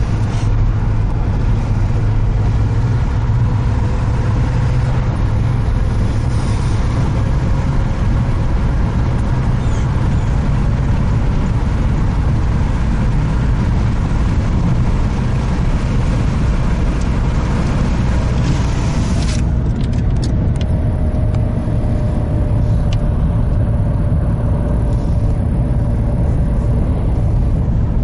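Car driving along, heard from inside the cabin: a steady low rumble of engine and road noise with a hiss over it. About two-thirds of the way in the hiss drops away abruptly while the rumble carries on.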